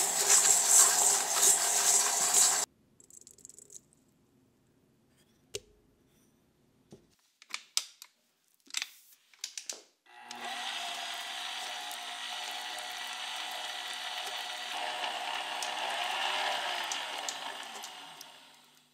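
Electric stand mixer with a flat beater creaming butter and sugar in a stainless steel bowl, its motor running with a steady whine. It stops about two and a half seconds in, a few sharp taps and clicks follow, then it starts again about ten seconds in, beating in an egg, and fades out near the end.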